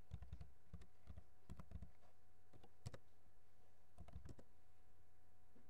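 Faint keystrokes on a computer keyboard as a terminal command is typed. They come in small clusters of a few presses with pauses between, including one sharper click near the middle, over a steady low hum.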